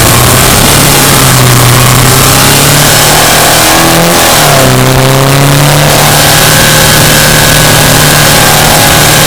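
Subaru Impreza Sport's flat-four boxer engine running steadily under way. About four seconds in, the revs dip sharply and then settle back to a steady note.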